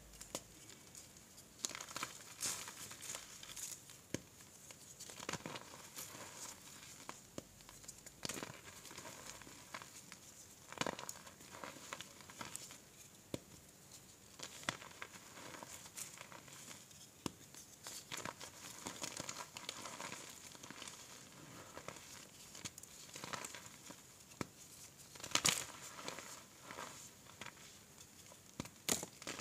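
Blocks of reformed gym chalk crushed and crumbled in bare hands: a steady run of irregular dry crunches and crackles as the chalk breaks apart into powder, with one louder crunch near the end.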